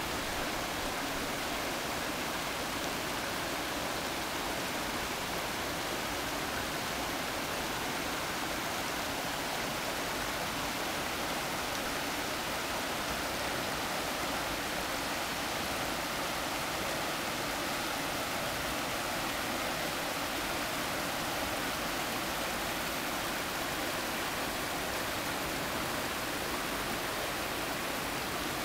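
Steady rush of river water running over rocks and small ledges in shallow rapids at low water.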